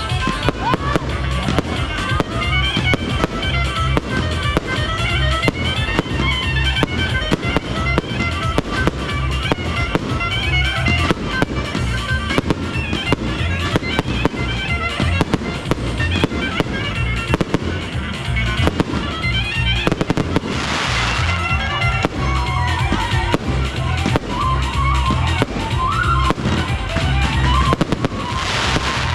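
A fireworks display: rapid, dense bangs and crackles over music with a pulsing bass beat. Two short hissing bursts come about two-thirds of the way in and again near the end.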